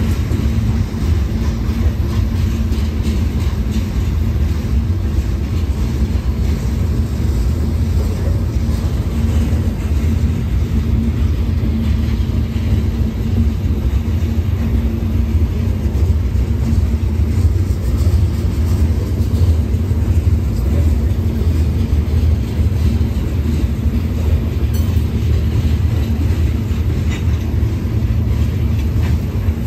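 Freight train hopper cars rolling past close by: a steady deep rumble of steel wheels on the rails.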